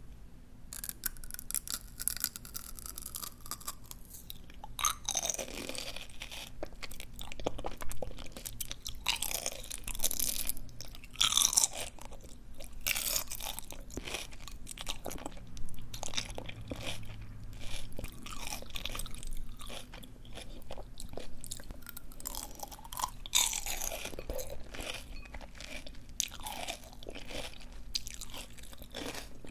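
Close-miked chewing of crisp, juicy ice plant leaves: dense, uneven wet crunching and crackling, with louder bites now and then.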